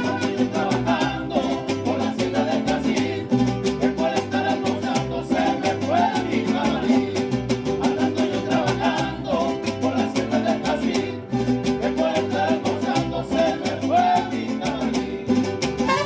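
Mariachi ensemble playing live: violins carry the melody over a rhythmic strummed-guitar accompaniment and the plucked bass line of a guitarrón.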